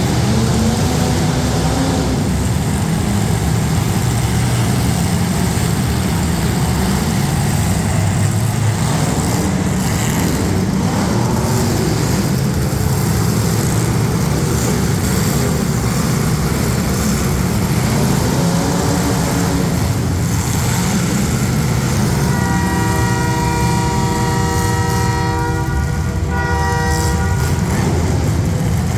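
Demolition derby street stock cars' engines running and revving. A loud horn sounds for about four seconds late on, with a short break near its end.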